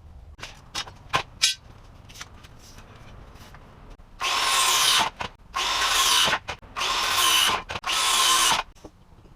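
Power drill running in four short bursts of about a second each, with a few sharp clicks of handling before them.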